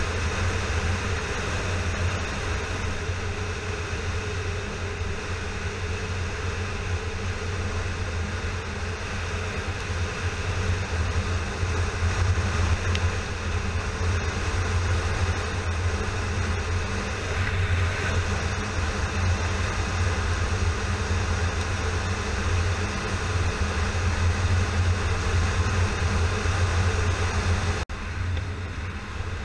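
Yamaha FZ6R's inline-four engine running steadily at cruising speed, mixed with wind and road noise. About a second before the end the sound cuts off sharply and carries on a little quieter.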